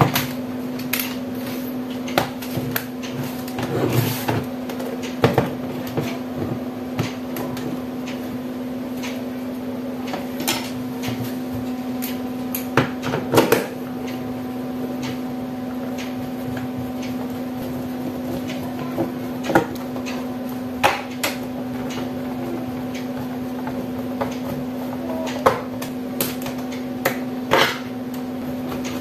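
A steady low hum with irregular clicks and knocks scattered throughout, like small objects being handled and set down.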